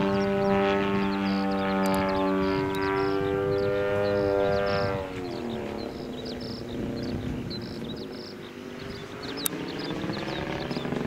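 Radio-controlled model airplane's motor and propeller running with a steady hum. About five seconds in the pitch drops and the sound fades, then the pitch climbs back up near the end.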